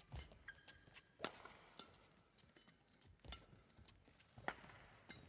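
Badminton rally: faint, sharp racket strikes on the shuttlecock about every one to two seconds, with players' footsteps and short shoe squeaks on the court floor.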